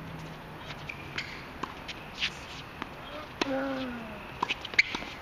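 Tennis rally on a hard court: a string of sharp knocks from the ball coming off rackets and bouncing, coming faster near the end. About three and a half seconds in, a hard hit comes with a player's short grunt.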